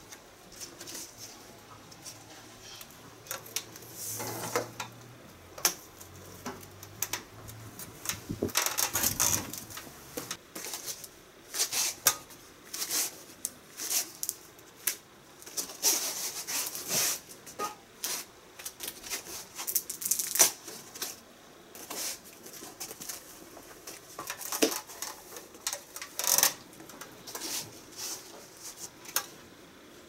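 Irregular rustling, scraping and light clinks from hands working on an air conditioner's pipework: vinyl tape being wrapped round the drain-hose joint, then the insulated copper refrigerant pipes with their brass flare nuts being handled into place. The sounds come in short uneven bursts, busiest about eight to ten seconds in and again past the middle.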